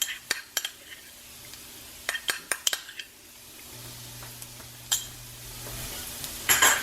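A metal spoon clicking and tapping against a jar and pan as Dijon mustard goes into onions and garlic frying gently in olive oil, over a low sizzle. Near the end comes louder stirring and scraping in the pan, and there is a low hum for a couple of seconds in the middle.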